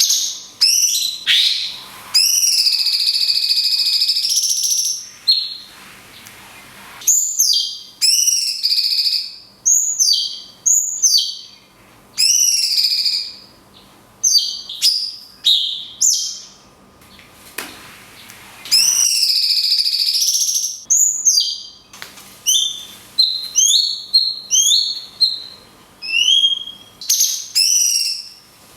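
Cucak cungkok bulbul singing long phrases of clear, arching whistled notes, some held for two or three seconds, with short pauses between the phrases.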